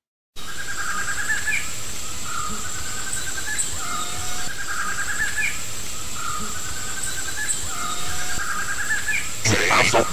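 Forest ambience: a steady high-pitched insect whine under repeated short trilling bird calls, roughly one a second. Electronic dance music with a heavy beat comes in near the end.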